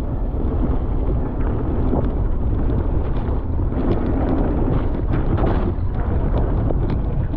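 Wind buffeting the microphone of a camera on a mountain bike riding down a wet, muddy trail, over steady tyre and riding noise. Small clicks and rattles are scattered through it.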